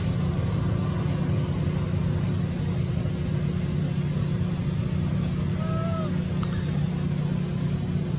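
Steady low motor-like rumble, with one short faint high call that dips in pitch about six seconds in.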